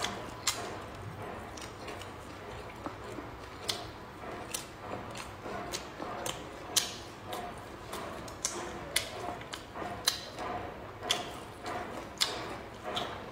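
Close-up eating sounds: wet chewing of cured meat and stir-fried bamboo shoots, with sharp mouth smacks and clicks about once a second.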